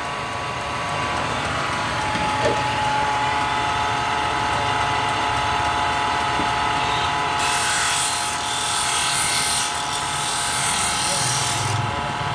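Belt-driven sanding disc running with a steady machine hum while wooden panel edges are pressed against it and smoothed. The rasp of wood on the disc comes and goes and is strongest from a little past halfway.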